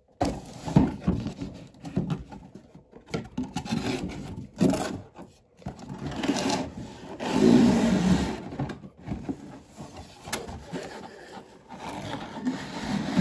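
Cardboard toy box being opened by hand: tape peeled off and the box and packaging rubbing, scraping and rustling, with small clicks, loudest about halfway through.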